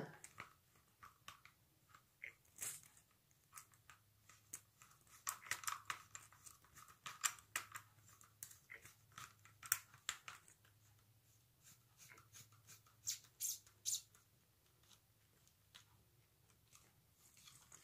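Faint, irregular clicks and scrapes of hands threading a metal shower hose's nut back onto a handheld shower sprayer, with the hose's metal sheathing shifting, busiest in the middle.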